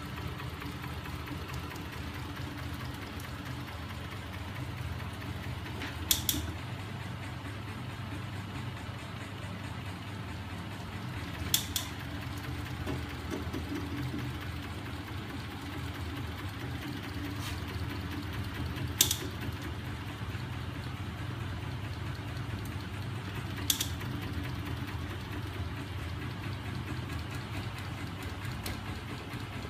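Homemade magnet-driven crankshaft rig, turned by a small 12 V electric motor, running steadily with a low hum. A few sharp clicks stand out several seconds apart.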